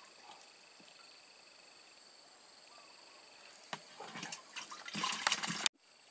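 Steady high-pitched drone of insects. About four seconds in come rustling and light knocks, louder toward the end, which cut off suddenly.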